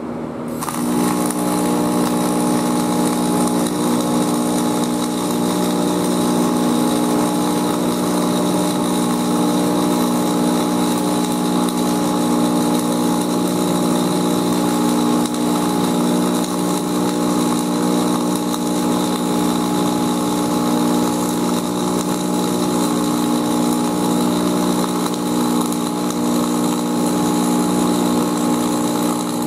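Flux-cored arc welding on a steel T-joint: the arc crackles steadily, with a steady hum under it, starting about half a second in and continuing without a break.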